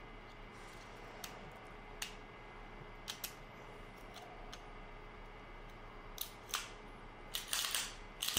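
Small metal clicks of a Staccato P 2011-style pistol's slide and frame parts being handled and fitted together during reassembly: a few scattered clicks, then a quicker, louder run of clicks in the last two seconds.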